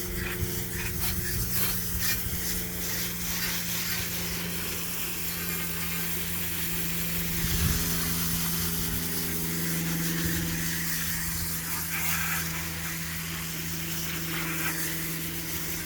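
Garden hose spraying water onto a dirty HVAC coil to rinse off coil cleaner: a steady hissing spray. A steady low hum runs underneath.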